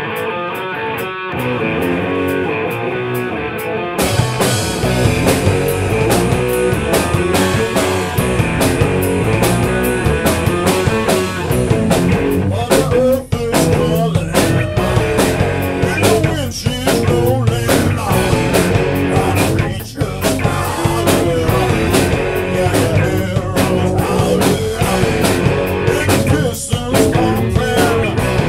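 Rock band playing live in a small rehearsal room: electric guitar alone for the first few seconds, then the drum kit and the other guitars come in together and play on loud.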